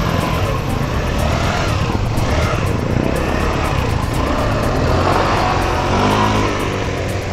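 Motorstar Easyride 150N scooter's single-cylinder engine running through a freshly fitted stock Yamaha NMAX exhaust pipe, revved with its pitch rising and falling, then pulling away near the end.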